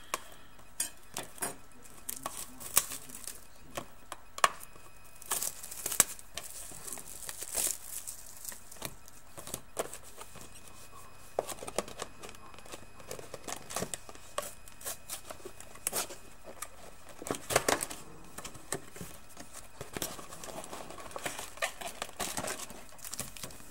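Wrapping crinkling and tearing as a sealed box of trading cards and its packs are opened, with scattered rustles and clicks.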